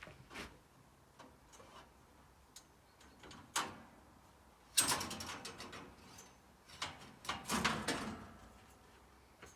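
Clicks and knocks of metal parts being handled, with two louder rattling clatters about five and seven and a half seconds in, as when a band sawmill's blade covers are opened and the blade is taken off.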